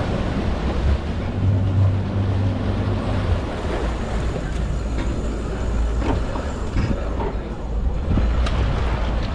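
Twin Mercury V10 350 Verado outboards running at low speed in gear, with a steady low hum and prop wash churning the water as the boat maneuvers off the dock.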